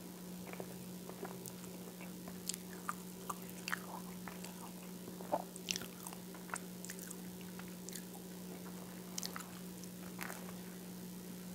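Close-miked chewing of whole wheat toast with peanut butter, with irregular wet mouth clicks and small crunches, and a fresh bite near the end. A steady low hum runs underneath.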